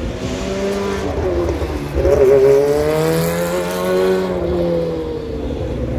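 Silk Cut Jaguar sports-prototype race car's engine running hard as it passes. The pitch dips briefly, rises, then falls as the car goes by, loudest about two seconds in.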